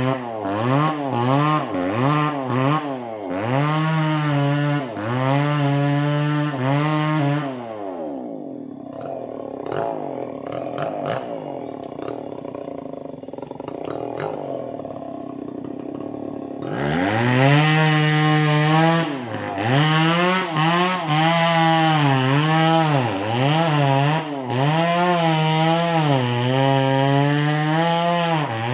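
Two-stroke chainsaw running hard, its pitch dipping and recovering about once a second. Partway through it drops to a lower, quieter run for several seconds, then revs back up.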